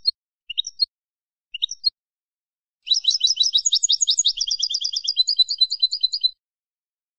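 Wild European goldfinch singing: three short call notes about a second apart, then a rapid, twittering run of trilled notes lasting about three and a half seconds.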